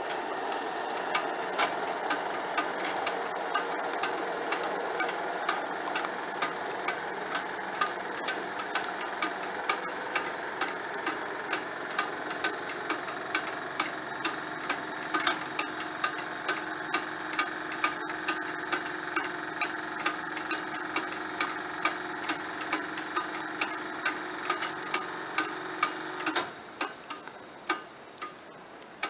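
Level-crossing warning bell striking steadily, about one and a half strokes a second, as the barriers rise after a train has passed. A steady hum runs under it and cuts off suddenly near the end, with a few last strokes after it.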